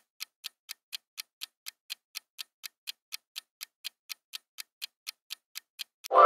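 Quiz countdown-timer sound effect: a clock ticking evenly, about four ticks a second. Just before the end the ticking stops and a loud ringing tone starts.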